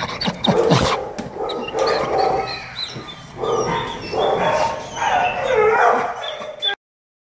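Female Staffordshire terrier crying for attention: several bursts of pitched, gliding whines and yelps. The sound cuts off suddenly near the end.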